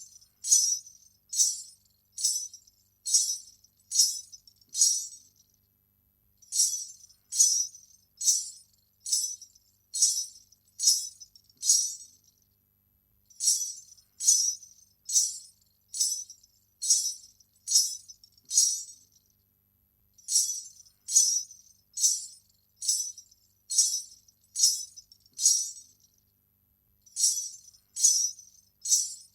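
Ghunghroo (salangai) ankle bells, strings of small metal bells, jingling in sharp shakes about one and a half times a second, in runs of about eight with a pause of a second or so between runs.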